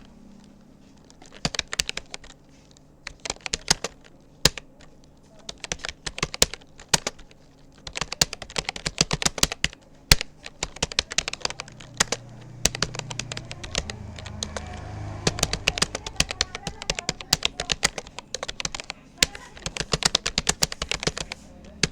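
Touch-typing on a Rapoo computer keyboard: rapid, irregular runs of key clicks with short pauses between bursts. The clicks begin about a second and a half in.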